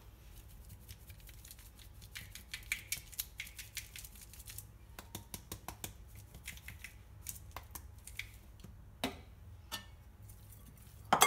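Salt being shaken from a shaker over a salad in a glass bowl: runs of quick clicking taps, a few a second, with two louder knocks near the end.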